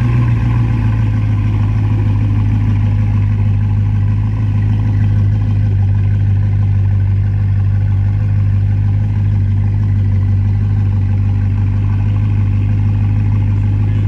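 Bugatti Chiron Pur Sport's quad-turbo W16 engine idling steadily, a low even note with no revs.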